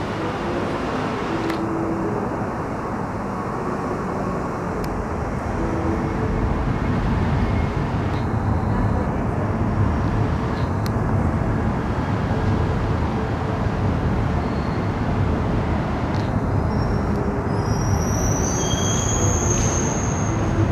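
Steady rumbling ambience of a railway station ticket hall, growing louder about six seconds in. Thin high-pitched squealing tones come in near the end.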